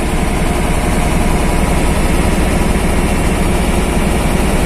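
A truck's diesel engine idling steadily during a warm-up, heard from inside the cab.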